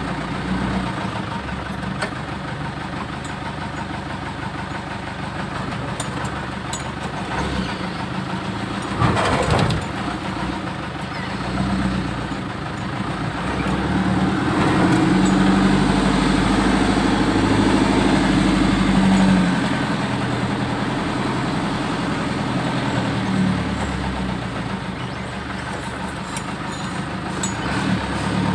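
Six-wheeler mini dump truck's engine running as the truck is driven, picking up revs about halfway through and easing off again a few seconds later. A short burst of noise comes about nine seconds in.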